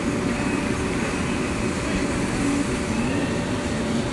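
Steady mechanical rumble with a constant hum, unchanging throughout, with faint distant voices underneath.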